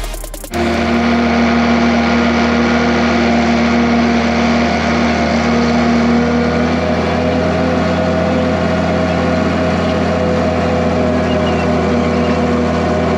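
A vehicle engine running at a steady speed, starting abruptly about half a second in and holding an even, unchanging pitch.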